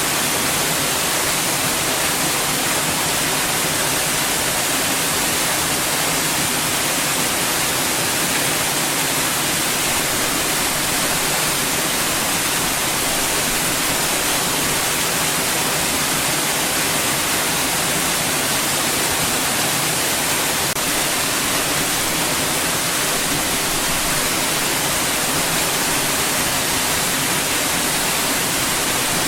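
Steady white noise: an even, unchanging hiss, brightest in the upper range.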